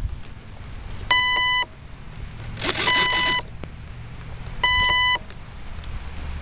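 Electronic beeper sounding a half-second tone three times, about every two seconds, over low wind rumble on the microphone. A short gust of hiss comes near the middle.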